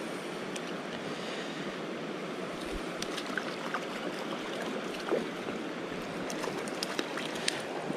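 Shallow creek water running over rocks as a steady rushing hiss, with scattered small clicks and taps in the second half.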